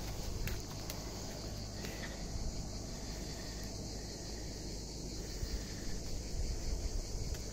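Steady high chorus of insects in the trees, running on without a break. Underneath are a low rumble and a few light knocks from walking and handling the phone.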